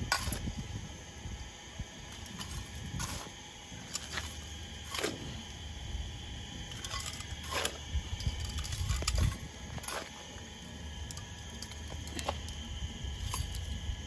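Gloved hands working gritty potting soil around succulents in a ceramic pot: scattered soft rustles and small clicks.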